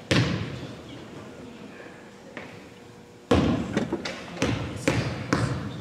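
Basketball thudding on a gym floor: one bounce at the start, then dribbling at about two bounces a second from about three seconds in, each bounce ringing briefly in the hall.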